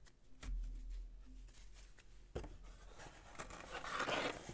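A low bump about half a second in, then crinkling and tearing of a wrapper from about two seconds in, loudest near the end: a trading-card pack being torn open.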